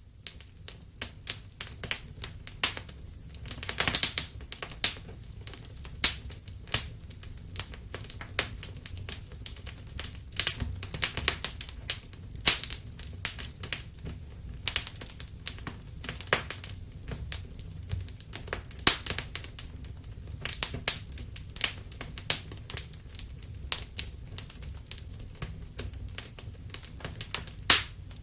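Wood fire crackling: irregular sharp pops and snaps over a steady low rumble of burning, with a denser burst of louder pops about four seconds in.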